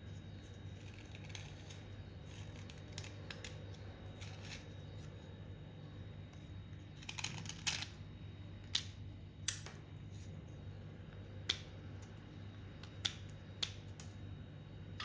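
A small metal blade scraping a wet white clay coating off a piece held in the hand: soft scraping, then from about halfway several sharp, crisp clicks as chips break away.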